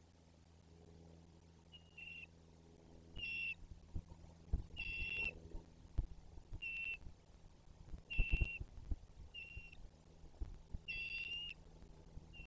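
Bald eagle calling: a series of about seven short, high whistled notes, roughly one every one and a half seconds, some fuller and louder than others. Low thumps sound underneath in the middle of the series.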